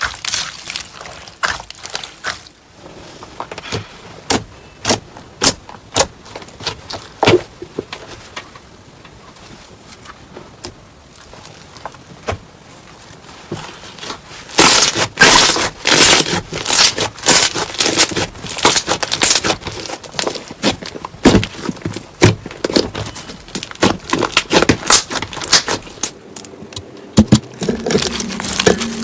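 Slime being pressed, squished and stretched by hand, giving sharp crackling clicks and pops. They come in a dense run about halfway through, with sparser clicks before and after.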